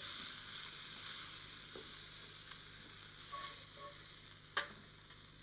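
Langoustines sizzling as they sear in a very hot frying pan, the sizzle slowly dying down. A single sharp click about four and a half seconds in.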